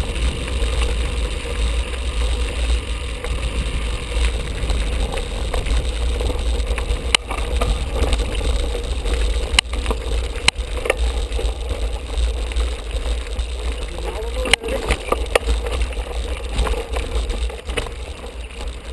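Wind buffeting the microphone of a handlebar-mounted camera while a mountain bike rolls over a rocky gravel track. The tyres crunch over stones and the bike rattles, with a few sharp knocks as it hits rocks.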